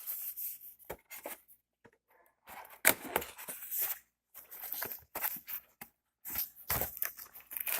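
Headphone packaging being handled and opened by hand: intermittent rustling and tearing of plastic and cardboard in short bursts, with brief silent gaps.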